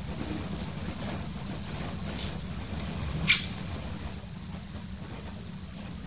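Wild birds with faint, short, high chirps over a steady low rumble, and one sharp, loud call-like note a little over three seconds in.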